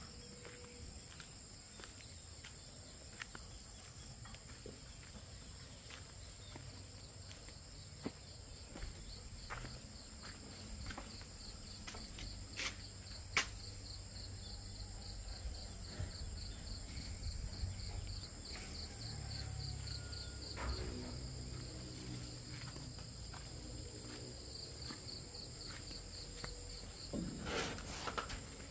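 Insects chirping steadily in the background: a continuous high trill with a second trill pulsing in a regular rhythm. Scattered short clicks and a low rumble sound over it.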